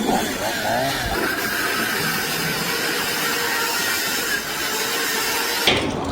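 An engine running steadily, with a sudden burst of louder knocks near the end.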